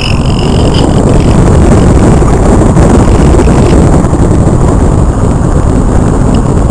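Loud wind rush and buffeting on the onboard camera microphone of a Multiplex Cularis model aircraft in flight. A faint high whine stops under a second in.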